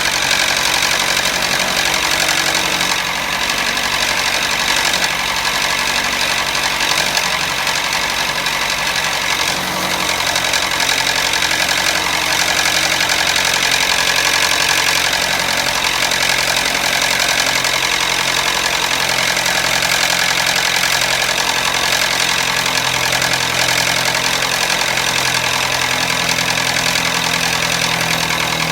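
Toyota Matrix four-cylinder engine idling with a steady rattle: the engine has run completely out of oil through a leaking gasket.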